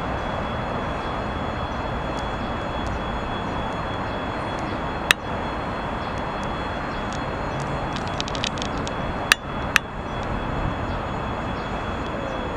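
Steady rumble of a TEM18DM diesel locomotive slowly approaching with a passenger train. A sharp click comes about five seconds in, then a few faint clicks, then two sharp clicks half a second apart.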